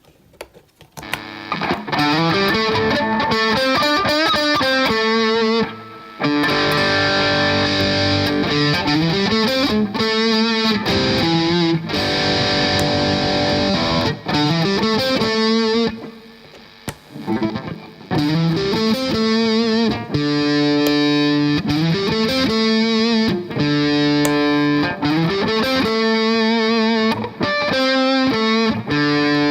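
Electric guitar played through an overdrive pedal with a distorted tone: held notes and short melodic runs, starting about a second in and breaking off briefly twice.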